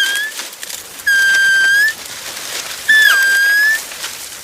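A whistle blown in long, steady, shrill blasts: one ends just at the start, and two more follow about a second and three seconds in. Each rises slightly at the end, and the later one has a second note falling away beneath it.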